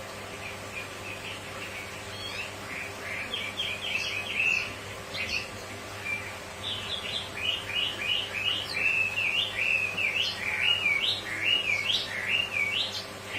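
Wambi bird singing a quick string of chirps and slurred whistled notes, sparse at first and turning into a busy, continuous run about halfway through.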